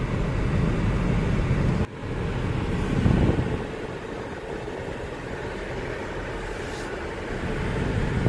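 Steady road noise of a car being driven. It drops out sharply for a moment about two seconds in, swells briefly, then carries on quieter.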